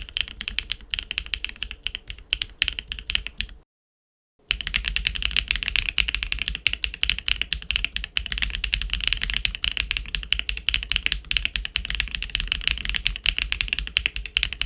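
Fast typing on a mechanical keyboard fitted with MMD Princess Tactile V4 tactile switches, a quick run of key clacks. The typing breaks off for a moment of dead silence about four seconds in, then resumes a little louder.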